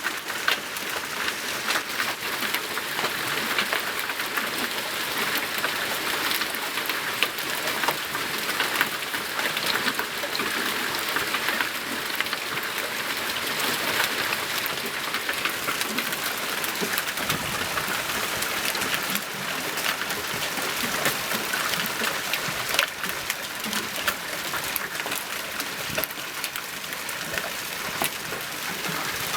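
Large hailstones pelting down in a dense, steady clatter of countless small impacts over a hiss of falling precipitation.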